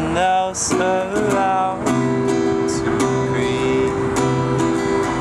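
Small-bodied acoustic guitar strummed in a steady rhythm of chords, with a man singing over it for the first couple of seconds before the guitar carries on alone.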